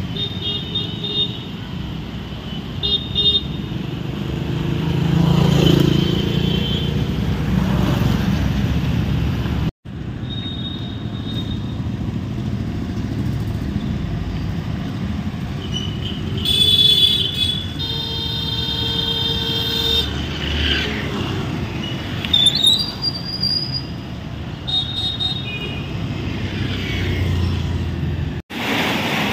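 Street traffic: motorcycles and scooters running past, with a steady engine rumble. Short horn toots come near the start, and a longer horn sounds a little past halfway.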